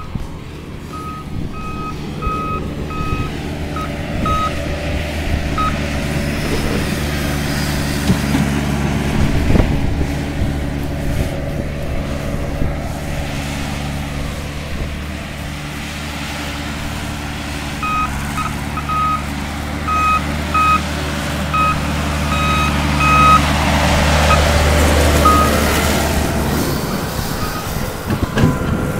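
A heavy truck's engine running steadily while its reversing alarm beeps, in two spells: a few seconds of beeping about a second in, and again from about 18 s until shortly before the end.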